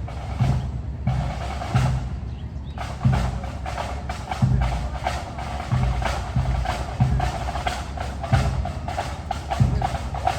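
Pipe band drum corps playing a march: a steady bass drum beat under rapid snare drum strokes and rolls.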